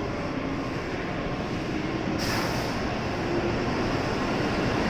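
N700A Shinkansen train pulling out of the station and gathering speed: a steady rumble of wheels and running gear that slowly grows louder, with a brief hiss about two seconds in.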